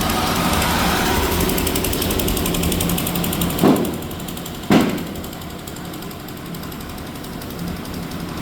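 Concrete mixer machine's engine running steadily, with two loud bangs about a second apart near the middle.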